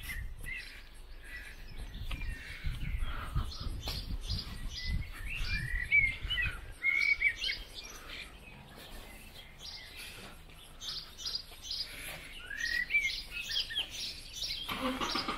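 Small songbirds singing and chirping, many short calls and whistled phrases overlapping, with a low rumble underneath in the first half.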